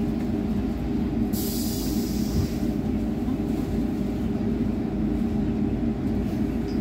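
Steady low hum and rumble inside a moving city public-transport vehicle, with a short hiss about a second and a half in.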